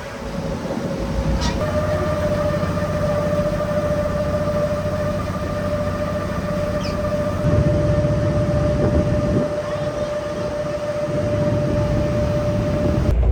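Ship's machinery droning: a low rumble with a steady high whine that comes in about a second and a half in and holds almost to the end.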